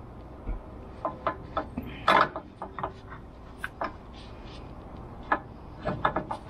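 Irregular light metallic clinks and knocks of a bolt and brace parts being handled and offered up to a threaded insert in the car's frame. The loudest knock comes about two seconds in, with a quick run of clicks near the end.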